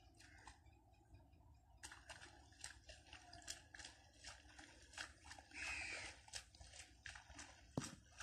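A crow caws once about two-thirds of the way through, over faint, irregular clicking and crackling.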